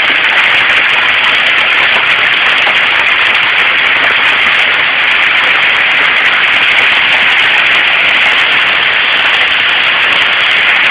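Hail and heavy rain coming down hard, a loud, steady hiss with no let-up.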